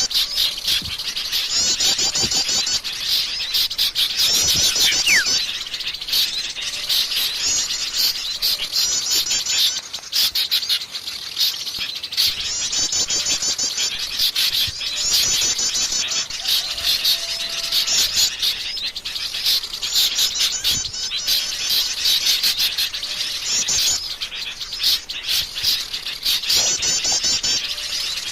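Wild forest birds singing. One bird repeats a short, high, fast trilling phrase every two to three seconds, with many quick chirps from other birds around it.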